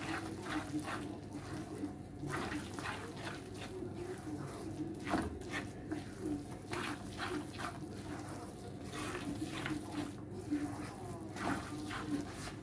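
Wooden spatula stirring and scraping thick semolina upma around a frying pan, in short irregular scraping strokes.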